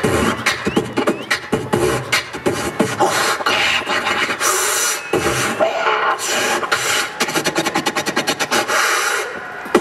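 A person beatboxing into a handheld microphone: rapid mouth-made kick, snare and hiss sounds in an irregular rhythm, ending in a fast run of clicks.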